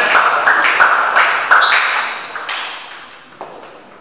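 Table tennis rally: the ball clicks off the bats and the table in quick succession, a few hits a second, with a short high squeak about two seconds in. The hits stop and the hall goes quieter as the point ends.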